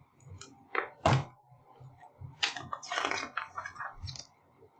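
Paper rustling and crackling in a few short bursts as a book page is handled and turned, the loudest about a second in and a longer stretch of rustling in the second half.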